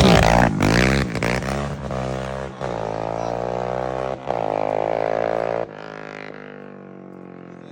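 Yamaha Raptor 700 ATV's single-cylinder four-stroke engine running loud through a big aftermarket exhaust. The revs fall in the first second, then the engine holds a steady drone, and it turns much quieter about three-quarters of the way in.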